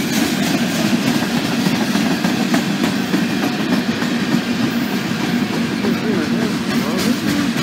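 Freight cars rolling past close by: a steady rumble of steel wheels on rail, with the clickety-clack of wheels crossing rail joints.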